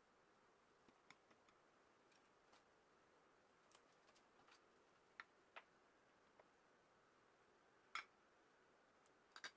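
Very faint, irregular pops and crackles of egg-dipped toast frying in butter in a frying pan, about a dozen scattered clicks over a low hiss, the sharpest one about eight seconds in and a quick pair just after.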